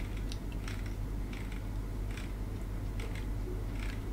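Sparse soft clicks from a computer mouse or keyboard, about one a second, as the application menu is scrolled, over a steady low hum.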